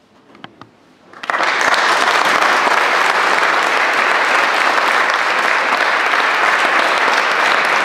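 Audience applauding: a few scattered first claps, then about a second in the whole audience breaks into full, steady applause.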